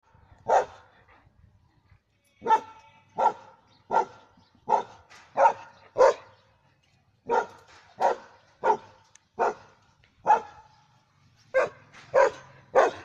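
German Shepherd barking repeatedly: about fifteen single barks, mostly under a second apart, with a short break after the first bark and another about halfway through.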